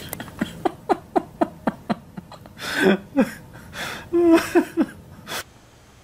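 Someone laughing in a quick run of short, falling ha-ha bursts, about four a second, followed by a few louder laughing and vocal sounds that die away about five seconds in.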